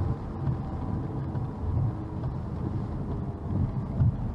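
Car driving at highway speed on a wet road, heard from inside the cabin: a steady low rumble of engine and tyres.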